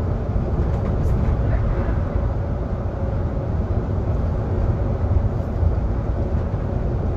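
Solaris Urbino 18 IV articulated city bus riding along, heard from inside the cabin: a steady low rumble of engine and road noise.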